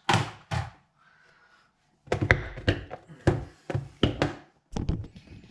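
Knocks and thuds of things being handled and set down: two sharp knocks at the start, then a quick run of clattering strikes for about three seconds.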